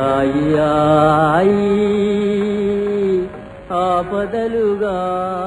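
Male playback singer in a 1950s Telugu film song, holding long, wavering notes in raga Ananda Bhairavi over a steady accompanying drone; the phrase breaks off a little after three seconds and a final held phrase follows, fading out.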